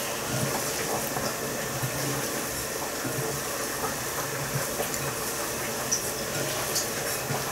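Hand mixing minced-meat mixture for meatballs in a glass bowl: soft, wet squishing and small irregular clicks, over a steady hiss.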